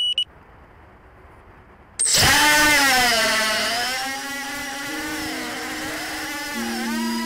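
A short electronic beep at the very start. About two seconds in, an FPV quadcopter's motors and propellers spin up suddenly for takeoff, then whine with a pitch that rises and falls as the throttle changes, heard through the on-board camera. Music with held synth notes comes in underneath about four seconds in.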